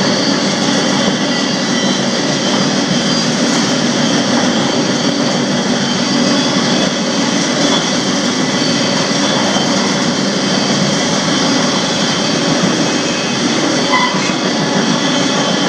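Steady roar of a moving freight train heard from the end platform of a covered hopper car riding in it: steel wheels running on the rails. A brief higher note stands out near the end.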